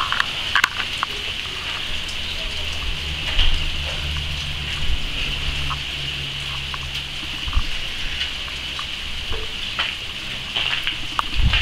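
Small hail or ice pellets falling, a steady hiss-like patter made of many tiny ticks on the roofs and pavement. A low steady hum runs underneath for several seconds in the middle.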